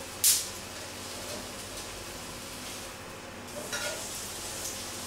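Chicken breast sizzling steadily on a char grill pan, with a loud sharp clack of metal tongs against the pan just after the start and a fainter clink with a brief ring near four seconds.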